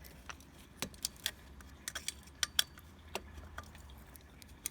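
Scattered sharp metal clicks and clinks from a hand tool turning and tightening a bolt on a 50cc minimoto, about a dozen irregular clicks over a low steady hum.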